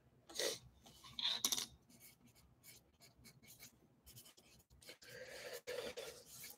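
Faint scratching and rubbing of paper being handled close to the microphone. There are two short scrapes in the first two seconds, then a quiet spell, then fainter scratching near the end.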